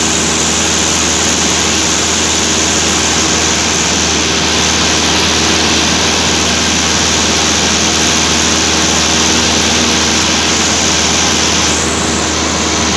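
Steady drone of a Cessna single-engine plane's piston engine and propeller in cruise, heard inside the cabin, with a low hum under a dense rush of air noise. The rushing noise eases slightly near the end.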